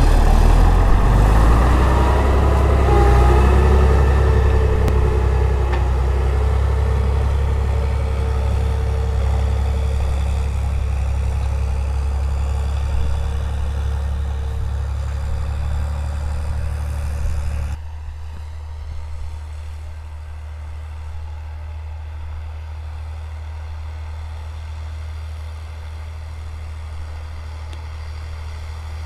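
HTZ T-150K tractor's diesel engine running steadily as it pulls a tillage implement across the field, its sound growing fainter as the tractor moves away. About two-thirds of the way in the level drops suddenly and a quieter, steady deep engine drone carries on.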